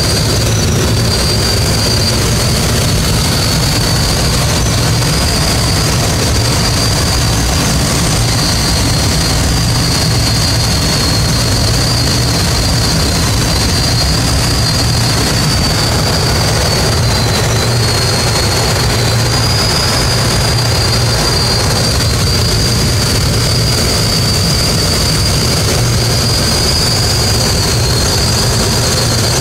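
Steady wind rush and a droning propeller engine heard from inside a glider's cockpit while it is towed up, with a thin high whistle held over it.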